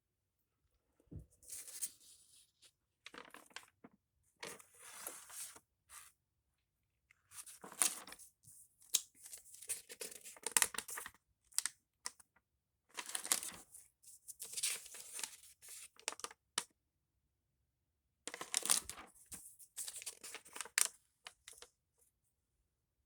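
Paper rustling and crinkling in repeated bursts of a second or two with short pauses between, as drawings on paper are handled and pages turned.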